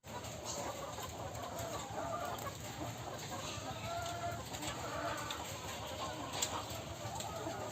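A flock of laying hens clucking, many overlapping short calls at once over a steady background hum.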